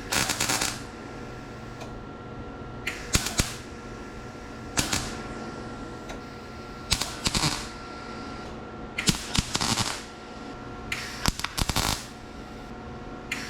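Welder laying short tack welds on sheet-metal door skin: about six separate crackling bursts, each lasting under a second, a second or two apart, with a steady hum underneath.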